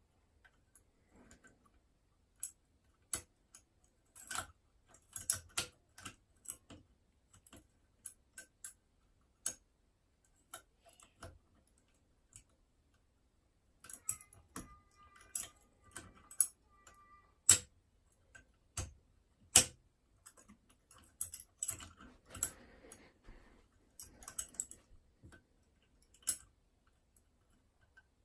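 Lock-picking tools working the levers of a Union Chubb 3G110 five-lever curtain mortice lock: irregular small metallic clicks and scrapes, with a faint squeak about halfway through.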